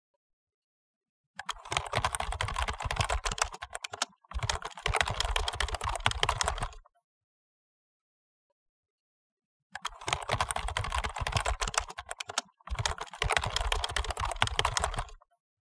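Fast typing on a computer keyboard: rapid key clicks in two spells of about five seconds, a few seconds apart, each broken once by a short pause.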